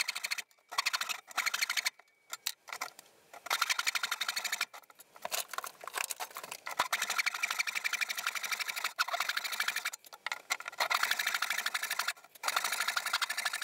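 Hand saw cutting off the protruding ends of the pine back boards along the chest's top edge: a series of rasping strokes with short pauses between them.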